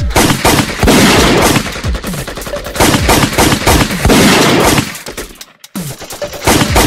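Gunfire sound effects dubbed over a toy-gun shootout: rapid bursts of automatic-weapon shots. They break off briefly about five and a half seconds in, then a few more shots follow.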